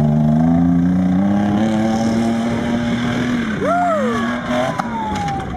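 Off-road pickup's engine revving hard, its pitch climbing and then holding as it drives across grass. About three and a half seconds in, a person cries out in a long falling yell, and a knock or thud follows near the end as the 4x4 rolls over.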